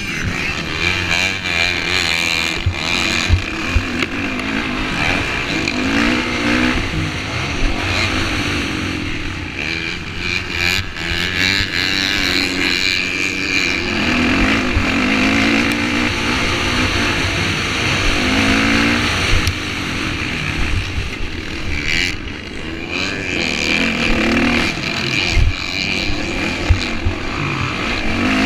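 Motocross bike engine revving hard, its pitch rising and falling again and again as the rider accelerates and shifts, heard from the rider's own bike with wind rushing over the helmet-mounted camera.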